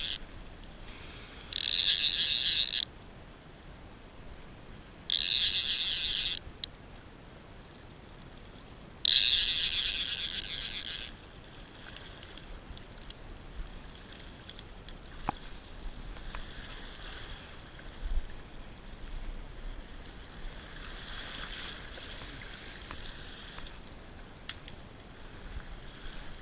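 Fly reel's click-pawl ratchet sounding in three rasping bursts of one to two seconds each while a hooked fish is played, the last and loudest about nine seconds in; after that only faint scattered ticks.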